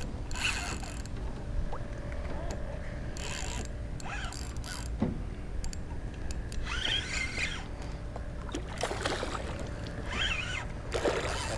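Spinning reel being cranked, its gears whirring and clicking as a small hooked fish is reeled in, with a few short splashes at the surface.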